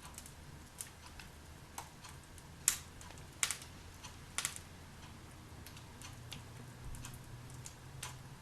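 Wood fire in a fireplace crackling, with irregular sharp pops of burning logs, three louder ones in quick succession near the middle, over a faint steady low hum.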